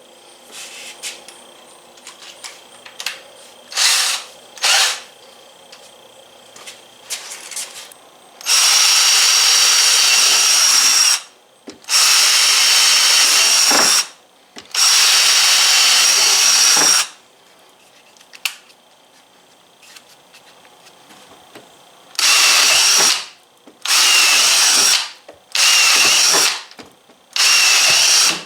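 Hart cordless drill running in repeated bursts with a steady high whine. Two quick blips of the trigger come first, then three longer runs of two to three seconds each, then four shorter runs near the end.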